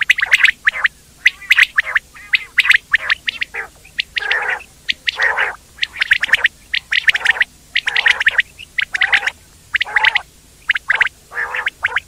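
Quail calling, a quick run of short notes in bursts that repeat irregularly with brief gaps between them.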